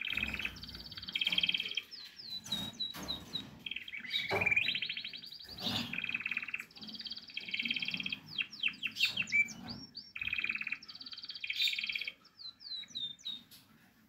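Canary singing: a long song of fast rolling trills and quick rising-and-falling whistled notes, in several phrases with short breaks, ending with a run of repeated sweeping notes.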